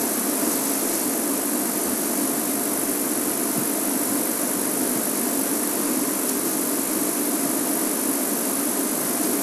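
Game-drive vehicle's engine idling steadily, with an even hiss over it.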